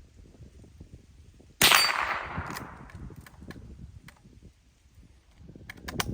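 A single shot from a Marlin 39A lever-action .22 rimfire rifle about one and a half seconds in, its report trailing off over about a second. A few short sharp clicks follow, mostly near the end, as the lever action is worked.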